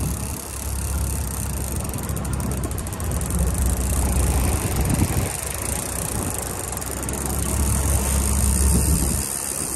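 A boat running at sea: wind buffeting the microphone in an uneven low rumble, over a steady rush of water along the hull.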